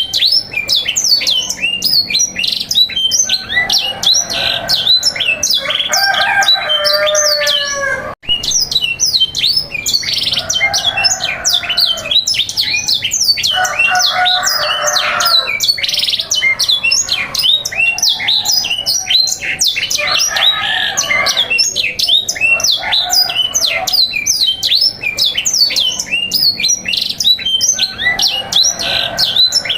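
Canaries singing nonstop: rapid, high chirps and trills, with lower rolling warbled phrases coming in and out. The song drops out for a moment about eight seconds in.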